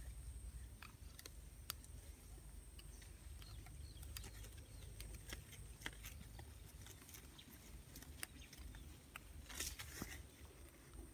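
Quiet outdoor background: a low, steady rumble with scattered faint clicks and a short run of slightly louder clicks near the end.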